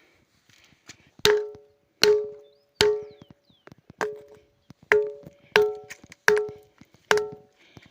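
A ringing rock (the 'bell rock') struck with a hand-held stone: eight sharp knocks, each ringing with a clear, bell-like pitched tone that dies away in about half a second.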